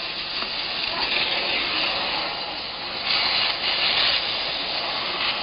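Gas pressure welding machine's heating torch flame hissing steadily on rebar, a little louder about three seconds in.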